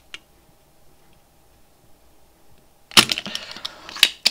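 Desoldering pump (solder sucker) working on a perfboard joint: after a quiet spell, a loud sharp snap about three seconds in, followed by a quick run of sharp clicks and another cluster near the end.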